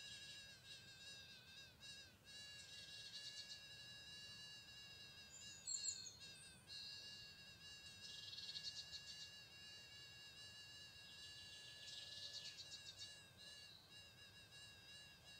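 Faint outdoor insect chorus: a steady high buzz of several thin tones, with bursts of rapid chirping trills about eight and twelve seconds in. A short high falling whistle sounds about six seconds in.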